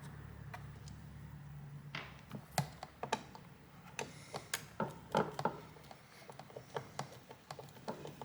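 Plastic hoverboard casing parts being handled and pried apart: a string of sharp clicks and knocks, thickest between about two and five and a half seconds in. A low hum fades out in the first two seconds.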